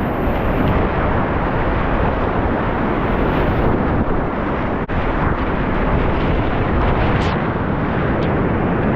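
Whitewater rapids rushing loudly as a steady, even roar of water, with a split-second dropout about five seconds in.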